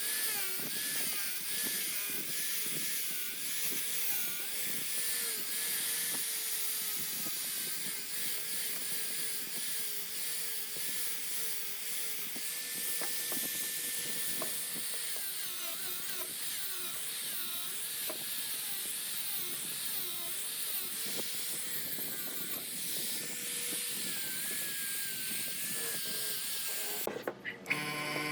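A small electric power tool running steadily, its motor pitch wavering as the load on it changes, with a scraping hiss from the work. It stops about a second before the end, and a steady electrical buzz follows.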